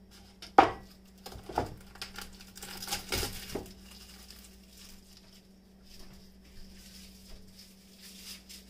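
Chef's knife chopping onion on a plastic cutting mat over a wooden board: a sharp knock about half a second in, then a few more knocks and clatter over the next three seconds. After that come quieter rustling and handling sounds, over a steady low hum.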